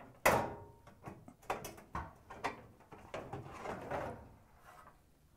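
Dryer front bulkhead being lifted off its top screws and pulled away from the cabinet: a sharp clunk about a quarter-second in, then several smaller knocks and scraping of the panel against the cabinet.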